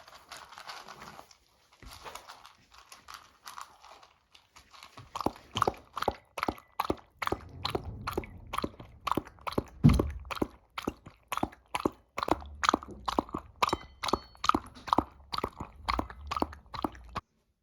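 A Shiba Inu dog crunching and chewing its food, starting about five seconds in with a steady run of sharp crunches at about two to three a second.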